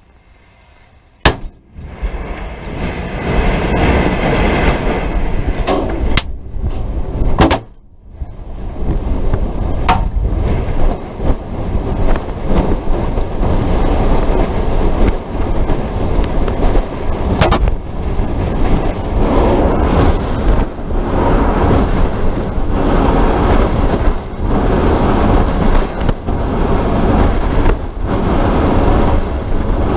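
Loud, continuous rushing wind noise on the Boeing Starliner capsule's onboard camera microphone as the capsule falls and then descends under its parachutes. It opens with a sharp bang after a moment of near quiet, and several more sharp cracks follow in the first twenty seconds.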